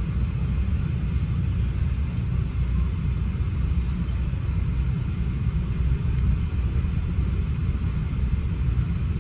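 Steady low rumble inside the cabin of a Boeing 777-200ER airliner on the ground before takeoff, its engines running.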